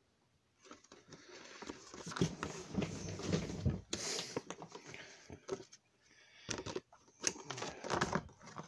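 A folded paper instruction manual rustling and crackling as it is unfolded and handled, in two spells with a short lull about six seconds in.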